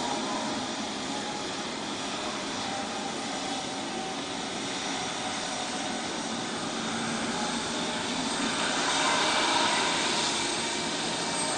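Boeing 757's twin jet engines running at taxi power: a steady whine over a rushing noise, swelling slightly about nine seconds in.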